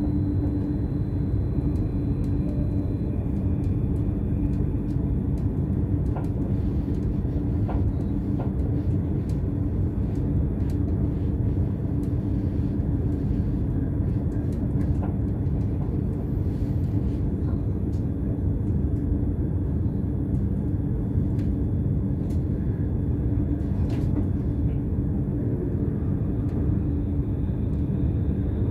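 BLS RABe 515 (Stadler KISS double-deck electric multiple unit) running along the line, heard from the driver's cab: a steady low rumble of wheels on rail with a constant hum and occasional faint ticks.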